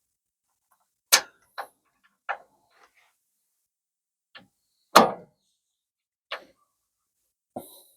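A handful of separate metallic knocks and clinks from tools and suspension parts being handled, about seven in all, with the loudest about five seconds in.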